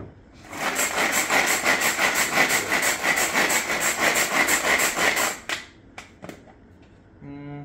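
Small electric food chopper running for about five seconds, its blades whirring through ingredients to cut them into small pieces, then stopping suddenly.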